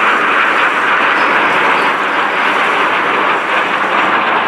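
Jet noise from a formation of Aermacchi MB-339 PAN jet trainers flying over, each with a single Rolls-Royce Viper turbojet: a loud, steady rushing sound that holds even with no breaks.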